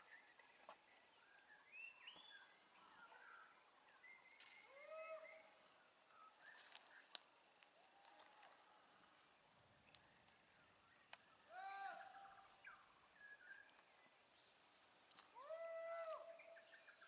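Faint forest ambience: a steady high insect drone of crickets, with a few short, faint calls every few seconds.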